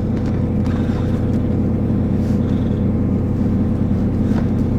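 Claas combine harvester's diesel engine idling steadily while its alternator's charging is being checked.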